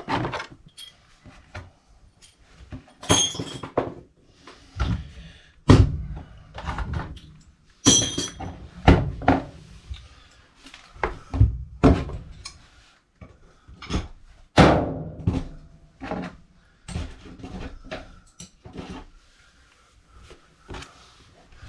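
Irregular knocks, thunks and clanks of tools and metal pipe parts being handled and set down, two of them ringing metallically.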